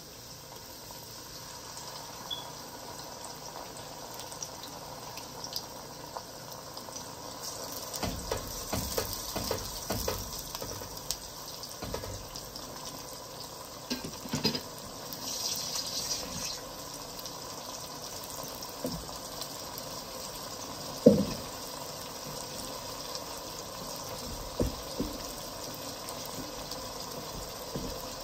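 Blended pepper and tomato mix frying in hot palm oil in a pot, a steady sizzle and bubble. Scattered clicks and knocks run through it, with the loudest single knock a little past the middle.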